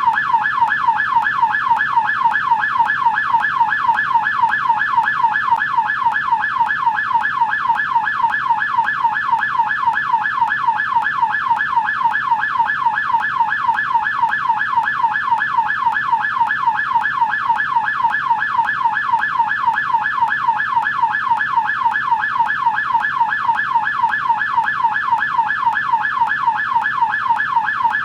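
American police siren on the yelp setting: a rapid, steady rising-and-falling wail, several sweeps a second, running without a break.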